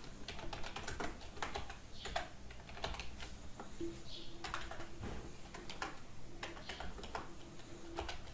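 Computer keyboard being typed on: key clicks in an uneven run, with short pauses between groups of strokes.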